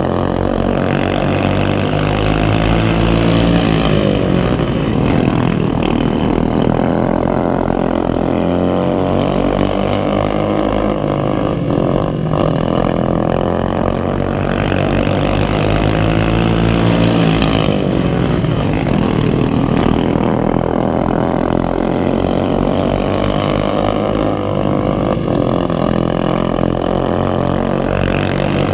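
Racing lawnmower engine running hard, its pitch rising and falling again and again every several seconds as it accelerates and backs off around the track.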